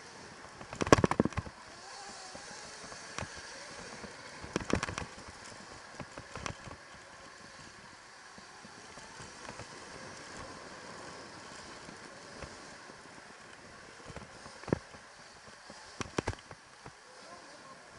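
Electric dirt bike ridden over a bumpy dirt track: a steady rush of riding noise, broken by short bursts of clattering rattles as the bike hits bumps, loudest about a second in, again near five seconds and twice near the end.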